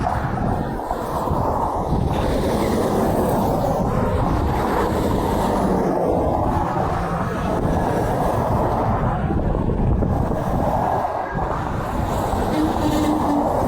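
Interstate highway traffic with semi trucks passing: a steady rumble of engines and tyres. A short faint low tone shows near the end.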